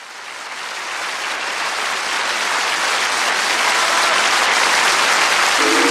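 Studio audience applauding, fading in and growing louder over the first few seconds. Held musical notes come in near the end as the song starts.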